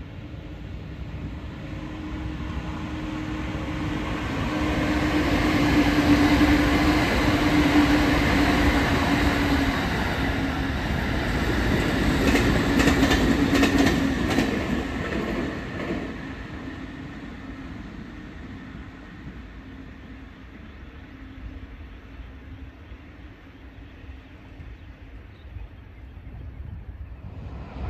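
A train passing by: it builds up over several seconds, its wheels clicking over the rail joints as it goes past, then it fades away, with a steady low hum beneath.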